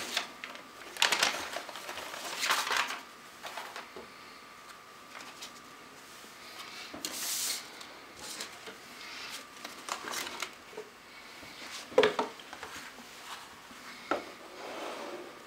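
Tissue paper and card rustling as a necktie is unpacked from its gift box, with a few light knocks of the box against a wooden table near the end.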